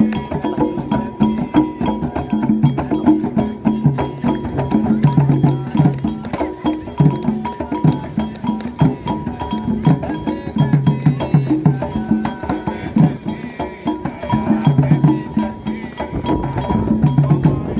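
Candomblé drumming: atabaque hand drums playing a fast rhythmic toque, with sharp struck clicks keeping time over the low drum tones.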